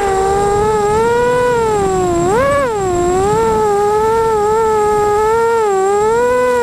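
Emax Nighthawk 250 racing quadcopter's 2280KV brushless motors and 5040 propellers whining. The pitch wavers up and down with the throttle, with a sharp rise and fall about two and a half seconds in.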